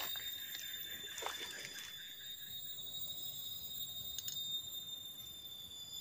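Faint, steady high-pitched shrilling of forest insects, several tones at once, with a few soft rustles and ticks from movement in the leaf litter.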